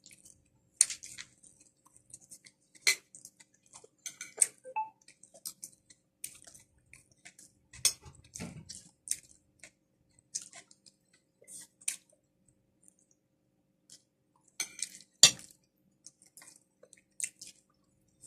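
Close-up eating sounds of a seafood meal of creamy shrimp and crab: wet chewing and lip smacking, broken by scattered sharp clicks and knocks. The loudest knock comes about fifteen seconds in.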